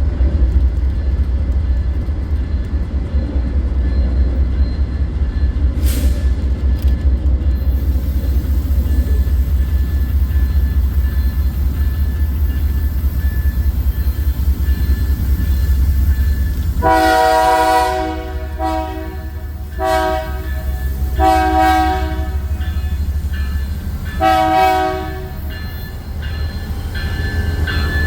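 Diesel freight locomotive passing with a heavy low rumble. A little past halfway its air horn starts sounding a chord of several tones in about five blasts of differing length.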